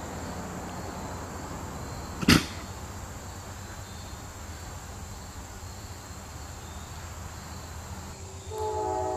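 Steady outdoor background noise with one sharp click about two seconds in. Near the end a train horn starts, several steady tones sounding together as one chord.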